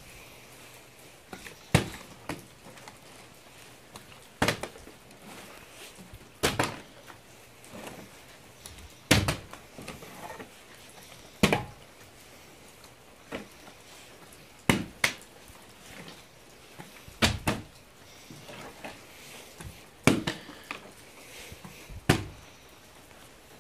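Plastic water bottle landing again and again on a hard floor in repeated flip attempts: about ten sharp thuds, spaced two to three seconds apart.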